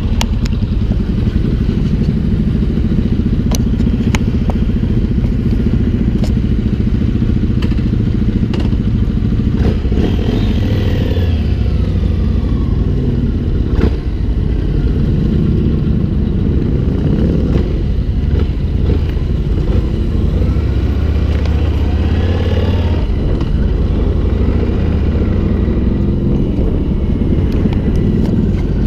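Yamaha MT-01 motorcycle engine heard from the rider's seat, running steadily at first, then pulling away and accelerating, its pitch rising and falling with the throttle about ten seconds in and again past twenty seconds, with the group's other motorcycles riding close by.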